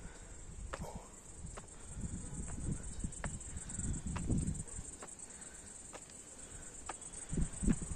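Insects droning steadily at a high pitch, with wind rumbling on the microphone in uneven swells and faint ticks about once a second, in step with someone walking up stone steps.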